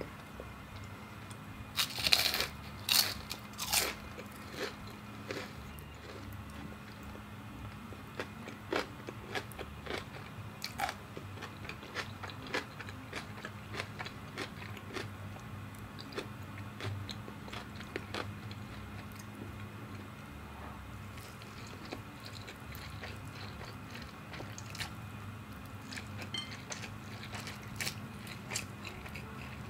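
Close-miked crunching bites into battered, deep-fried enoki mushroom, loudest in a cluster of sharp crunches about two to four seconds in. Softer chewing crunches follow on and off.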